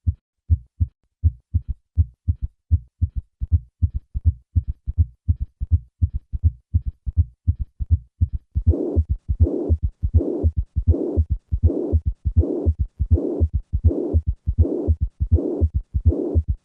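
Heart sounds as heard through a stethoscope: a steady run of heartbeats with a third and a fourth heart sound, giving a gallop rhythm. About halfway through, a murmur of mitral regurgitation joins, a hiss that fills most of each beat.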